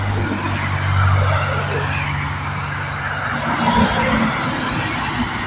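Road traffic going by: a steady engine hum, then a minivan passing close by, loudest a little under four seconds in.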